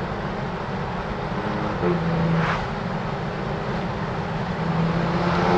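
BMW F80 M3's twin-turbocharged inline-six driving, a steady mix of engine, road and wind noise. The engine note swells briefly about two seconds in and again, louder, near the end.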